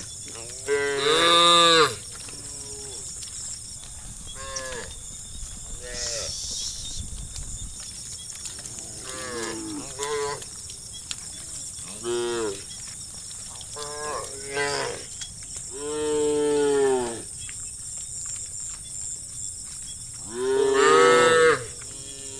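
Cattle in a herd mooing, one call after another with short gaps, about eight moos in all; the loudest come about a second in, midway and near the end.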